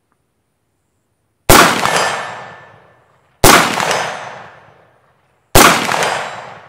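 IWI X95 bullpup rifle firing three aimed single 5.56 shots about two seconds apart, each crack trailing off over a second or so.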